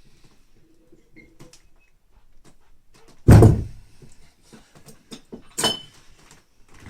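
Loaded Rolling Thunder grip handle with its weight plates set down hard on the floor: one heavy thud about three seconds in, then a shorter metallic clank with a brief ring a couple of seconds later.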